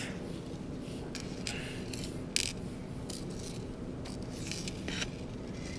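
Light scrapes and small clicks of a plastic Contour ROAM action camera and its loose parts being handled during disassembly, about half a dozen short sounds, the sharpest a click about two and a half seconds in, over a steady low hum.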